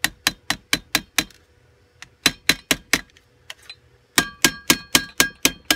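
A mallet tapping a small brad nail into folded bottle aluminum on a wooden board, in three runs of quick, even taps at about four a second with short pauses between. The last run rings faintly, the nail and metal sheet ringing under each blow.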